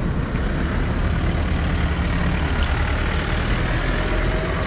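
An engine running steadily with a low rumble, and a single faint click about two and a half seconds in.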